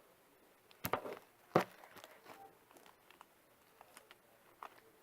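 Sticky fluffy slime being squeezed and pulled by hand, making short wet pops and crackles. The two loudest snaps come about one and one and a half seconds in.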